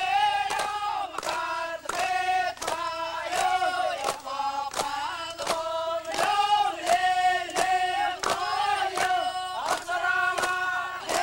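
Group of Yapese dancers chanting in unison on held notes, with a sharp beat struck about twice a second.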